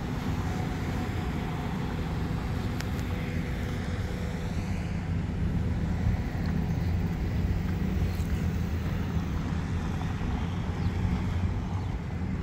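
Downtown street noise with motor vehicle traffic going by, a steady low rumble.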